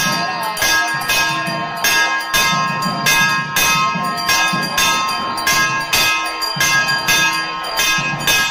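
Puja hand bell (ghanta) rung steadily through the worship, struck about twice a second, its clear ringing tones running on between strokes.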